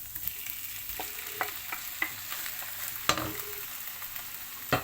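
Diced chicken breast and softened onion frying in oil in a large frying pan: a steady sizzle broken by several sharp knocks in the pan, the loudest about three seconds in.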